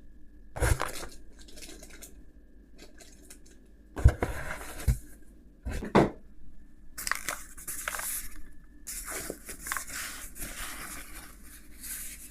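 Keyboard packaging being opened and handled: a few knocks against the box, then plastic wrapping crinkling and tearing for several seconds.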